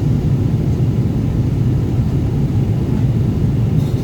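Steady cabin noise inside a Boeing 777 airliner: an even low rumble.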